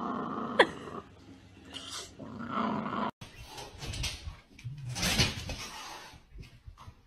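Huskies growling, with a sharp falling squeal about half a second in. After an abrupt cut about three seconds in, a cat hisses in two bursts.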